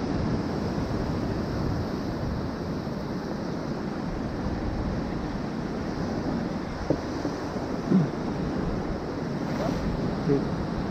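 Ocean surf breaking and churning against rocks, with wind buffeting the microphone. A couple of brief sharper sounds stand out about eight and ten seconds in.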